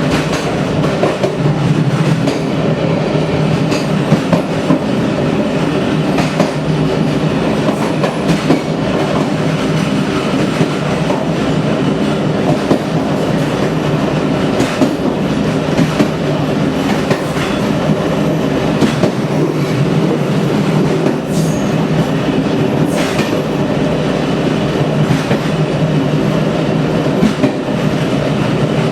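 Train wheels running over badly worn track: a steady rumble with irregular clicks and knocks as the wheels pass over the rail joints, a sign of the poor state of the rails.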